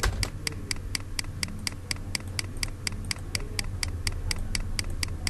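Rapid, perfectly even ticking, about four to five ticks a second, over a low steady hum, with one sharper click at the very start.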